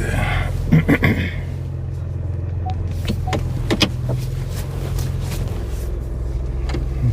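Ford Bronco Raptor's twin-turbo V6 running steadily, heard inside the cabin, with a few scattered clicks and knocks. Its low hum drops in pitch about five and a half seconds in.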